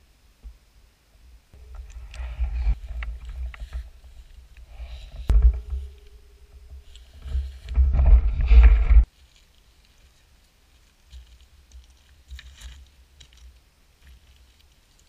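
Loud, rough rumbling and knocking on a small action camera's microphone, with a sharp knock about five seconds in. The noise cuts off suddenly about nine seconds in, leaving only a few faint clicks.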